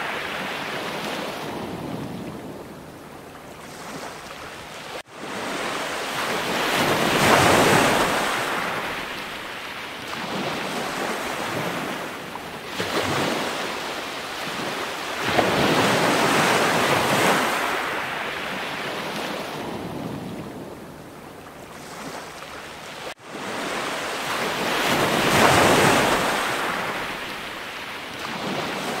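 Waves washing in and drawing back, a noise that swells and fades about every eight seconds. It cuts out for an instant twice.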